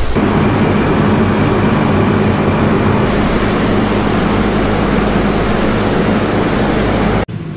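Nilgiri Mountain Railway steam locomotive standing at a halt, blowing off steam in a loud, steady hiss that grows stronger about three seconds in, over a steady low hum. The sound stops abruptly near the end.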